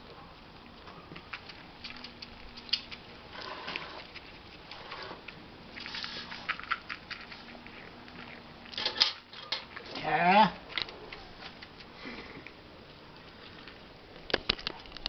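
Goat being hand-milked into a metal pot: intermittent hissing squirts of milk into the pot. About ten seconds in there is a short, loud, wavering call. A few sharp taps follow near the end.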